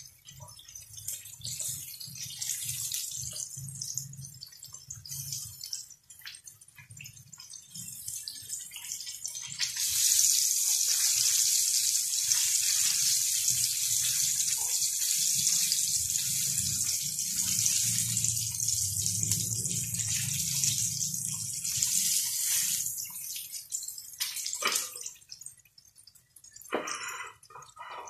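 Breaded chicken pieces deep-frying in hot oil, a steady sizzle that grows louder about ten seconds in and then dies down near the end, where a few light knocks are heard.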